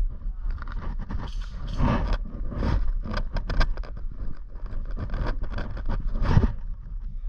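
Scraping and rustling of a player's gear and clothing as they move, in irregular short strokes over a steady low rumble on the microphone.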